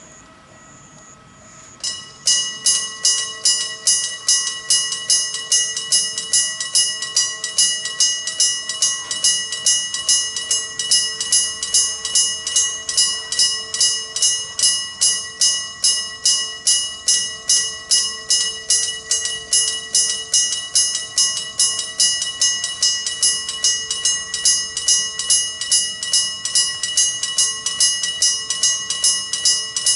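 Electric-bell level-crossing warning bell, a mechanical striker hitting a gong, starts about two seconds in and rings on in even, rapid strikes, about two and a half a second: the crossing signal warning of an approaching train.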